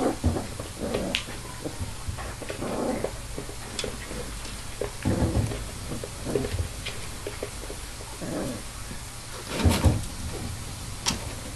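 A puppy's paws tapping and scrabbling on a glass-topped cardboard box, with irregular knocks, the loudest about ten seconds in, and occasional small puppy noises.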